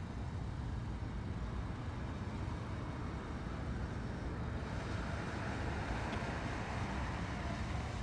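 Steady low background rumble, with a hiss that swells about five seconds in and stays.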